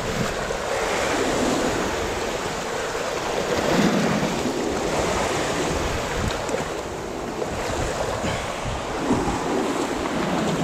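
Sea surf surging and washing over the rocks in slow swells, with wind buffeting the microphone.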